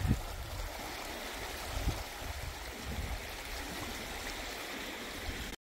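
Rushing river water: a steady, even hiss with some low rumble beneath it.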